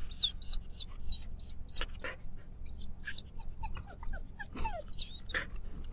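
Samoyed whining in a string of about a dozen short, high-pitched whimpers, some sliding down in pitch, with a few short sharp noises between them, over the low steady rumble of the car.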